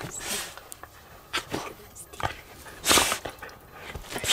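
A dog snuffling and sniffing close to the microphone, with bedding rustling, in short irregular puffs; the loudest comes about three seconds in.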